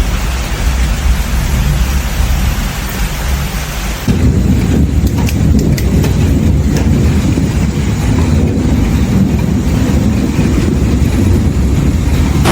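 Thunderstorm with heavy rain and rumbling thunder. About four seconds in, a louder, deeper rumble starts abruptly, with a few sharp crackles soon after.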